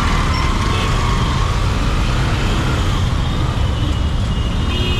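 A road vehicle running steadily: an even, loud low engine rumble mixed with road noise.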